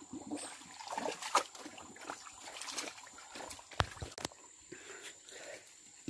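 Shallow muddy stream water sloshing and splashing softly and irregularly as two dogs wade and paddle in it, with a few sharp clicks, two of them close together about two thirds of the way through.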